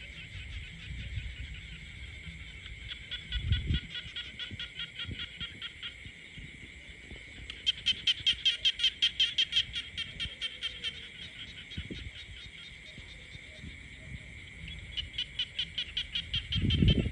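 Frogs calling in a chorus: trains of rapid, evenly spaced pulsed croaks, about seven a second, over a steady high background chorus. The loudest run comes about a third of the way in, with another near the end. A low thump comes just before the end.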